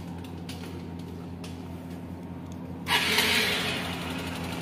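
Motorcycle engine running steadily at idle; about three seconds in a louder hiss joins it as the bike moves off.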